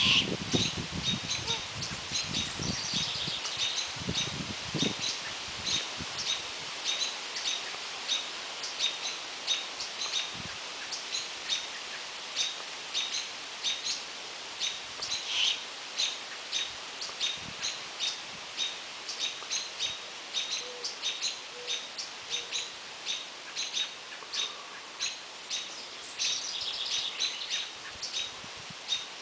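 A bird calling over and over in short, high chirps, about two a second, with no break.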